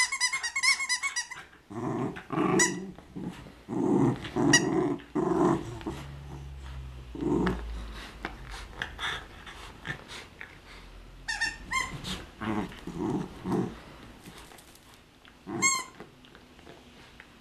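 A dog growling in play while tugging at a squeaky rubber burger toy, which squeaks at the start, again about two-thirds of the way in, and once near the end.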